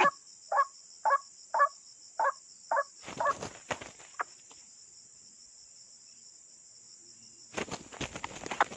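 White-breasted waterhen giving a repeated harsh call, about two a second, which stops about three seconds in, over steady high insect trilling. Near the end there is rustling, like footsteps through vegetation.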